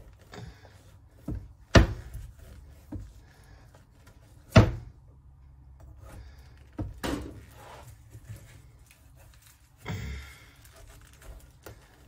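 Kitchen knife being forced through a tough raw butternut squash on a plastic cutting board: irregular knocks and thunks as the knife and squash strike the board, the two loudest about two and four and a half seconds in.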